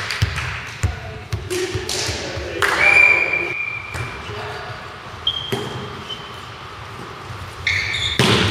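Volleyball rally in a sports hall: the ball struck with sharp slaps, a couple of short high-pitched squeaks of shoes on the court floor, and players calling out, echoing in the large hall.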